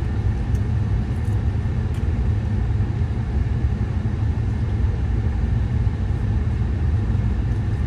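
Wind gusting against the tent: a steady, heavy low rumble that keeps surging and easing.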